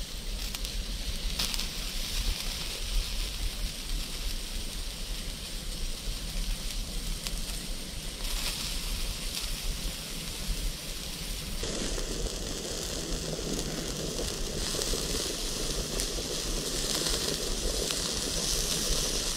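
Steak sizzling on the grill of a folding hobo wood stove, with butter vegetables bubbling in a pot on a spirit stove beside it: a steady frying hiss that grows fuller about two-thirds through.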